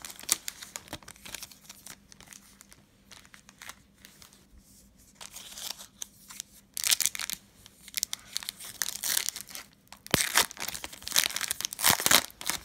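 Foil trading card pack crinkling in the hands and being torn open. The crinkling is soft at first, then comes in two louder spells, from about halfway through and again near the end.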